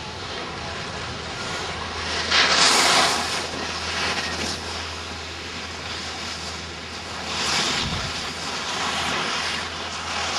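Steady rushing outdoor noise on a snowy ski slope with a low hum underneath, swelling into a loud hiss about two and a half seconds in and again more softly around seven and a half seconds.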